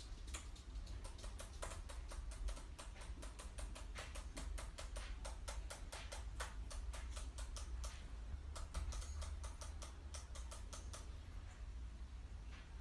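Laptop keyboard keys clicking in quick, irregular runs as a pigeon treads and pecks about on the keyboard, several clicks a second, with a brief pause about two-thirds through and the clicks thinning out near the end.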